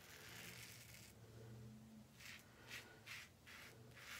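Faint rasp of a Blackland Sabre razor cutting stubble through shaving lather on the neck: one longer stroke at first, then several short strokes about half a second apart.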